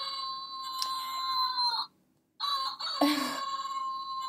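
A steady electronic tone with a fainter higher overtone. It cuts off abruptly for about half a second a little before two seconds in, then resumes, with a brief noisy burst about three seconds in.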